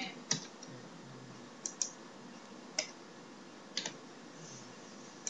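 Computer keyboard keystrokes: a handful of separate sharp clicks, about one a second, as short codes are typed in.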